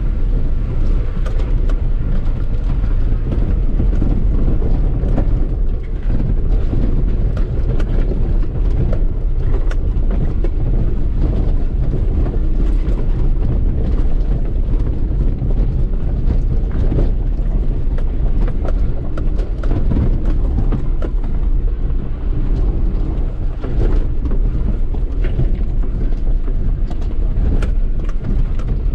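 Inside the cab of a 2013 Suzuki Jimny, its 1328 cc inline-four engine runs steadily as it drives a rough, rutted dirt track. Scattered knocks and rattles come from the body and suspension over the bumps.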